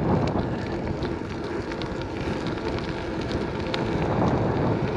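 Strong wind buffeting the microphone of a camera on a BMX being ridden along a paved bike lane: a steady rushing noise, with the tyres' rumble on the asphalt underneath.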